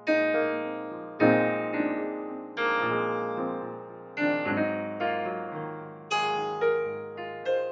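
Slow, gentle piano music: chords struck about every second and a half, each ringing on and fading away.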